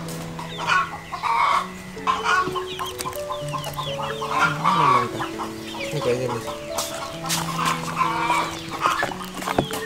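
Chickens clucking alongside background music made of long held notes that step from pitch to pitch.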